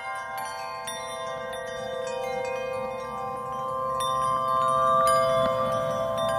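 Chime-like background music: light strikes ringing over sustained tones, growing louder in the second half.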